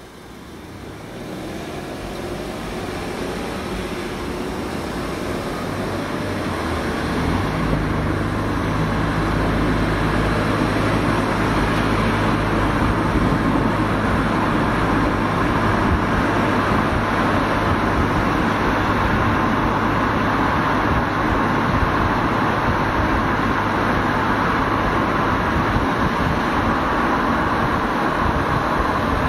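Toyota Camry 2.5 L hybrid pulling away from a stop and speeding up: a faint rising whine at first, then road noise that grows louder over the first several seconds and holds steady. A low steady engine hum from the four-cylinder runs through most of the drive and fades near the end.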